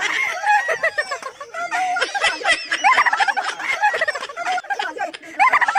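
Several people laughing hard together, overlapping high-pitched cackling laughter.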